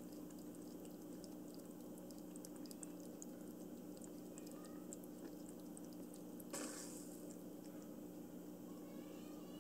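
Automatic pet water fountain running: its pump hums steadily under trickling water, with faint small ticks of a kitten lapping. A brief rush of noise comes about six and a half seconds in.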